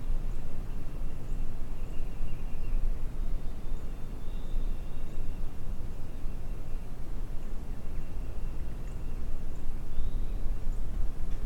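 Wind buffeting the microphone in a steady low rumble, with a few faint, high, drawn-out whistled bird calls in the background.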